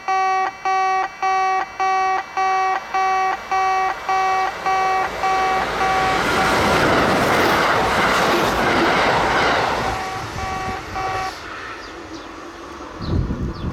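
Kintetsu level-crossing warning bell: an electronic ding repeating a little over twice a second. A train rumbles over the crossing about six seconds in. The bell stops about eleven seconds in, and a short low thump follows near the end.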